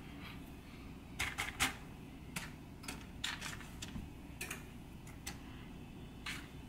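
Dry pinto beans clicking against each other as hands push and pick through them while sorting out stones: irregular light clicks, about ten over several seconds.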